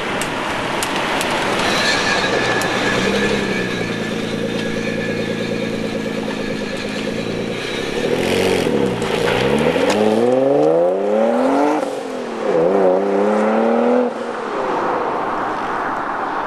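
Nissan 370Z's V6 engine running steadily, then revving hard as the car accelerates away. The engine note rises, drops once at a gear change about twelve seconds in, rises again and then fades as the car moves off.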